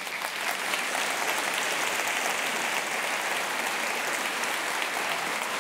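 A large audience applauding steadily after a lecture ends, a dense, even sound of many hands clapping.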